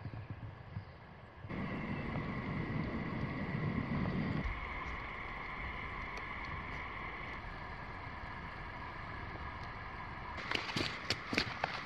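Outdoor bush ambience with a faint, constant high hum, and a low wind rumble on the microphone for a few seconds early on. Near the end comes a quick run of crunching footsteps on a dirt track.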